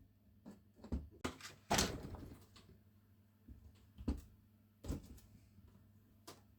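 Clicks and knocks of a disassembled angle grinder's parts being handled on a workbench, with a louder scrape lasting about half a second near two seconds in.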